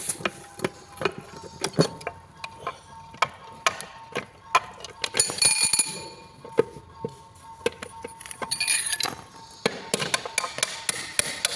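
Steel gearbox parts and hand tools clinking and knocking against each other as a manual transmission is taken apart: a long run of sharp, irregular metallic clicks, with a few brighter ringing clinks about halfway and again later.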